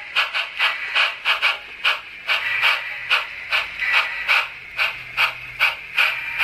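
Sn3 brass model steam locomotive's onboard sound system playing steam exhaust chuffs, sharp hissing strokes about four a second, as the engine runs slowly along the track.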